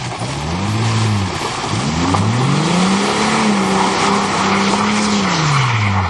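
Car engine revving hard with its wheels spinning in mud and dirt. The revs rise and fall briefly, then climb and hold high for a couple of seconds before dropping near the end, over a steady hiss of spinning tyres throwing dirt.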